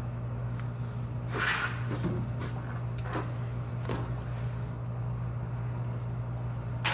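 Steady low hum in the background, with a few light clicks and a short rustle of hands handling small parts and tools under the car.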